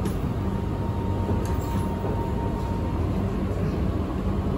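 Metro train running, heard from inside the carriage: a steady low rumble of wheels on rail, with a faint thin whine that fades out about three seconds in.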